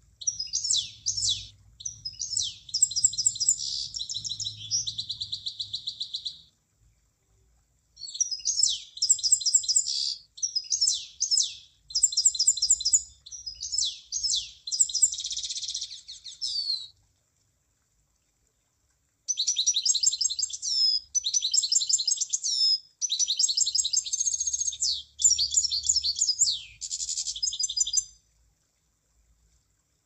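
Munia (emprit) singing: rapid, high-pitched chirps and buzzy trills in three bouts separated by short pauses.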